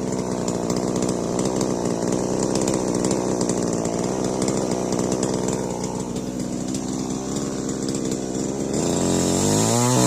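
Stihl MS 881 two-stroke chainsaw running steadily at speed, its engine pitch shifting and rising near the end.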